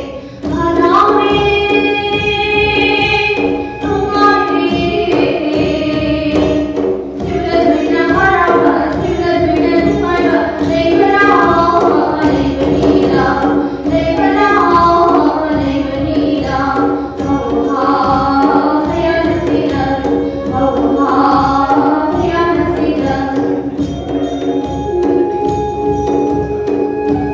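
Manipuri dance music: a singing voice over a steady beat of drum and cymbal strokes.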